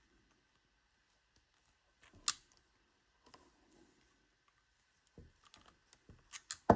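Sharp plastic clicks of pliers squeezing the wire-side cover of a 3-pin LED strip connector shut over a 3-core wire, pressing its contacts into the wire. One clear click comes about two seconds in, then a cluster of small clicks and a louder one at the very end.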